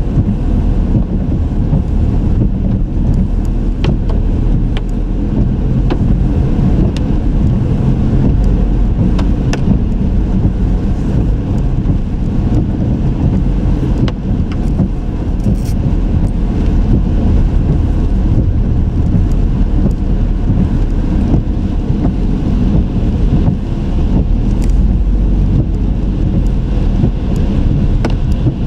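A car driving, with a steady low rumble of road and engine noise and a few faint clicks scattered through it.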